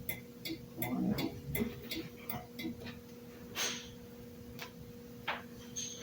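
Turn-signal flasher relay clicking at about three clicks a second, thinning to a few scattered clicks after a couple of seconds, over a faint steady hum.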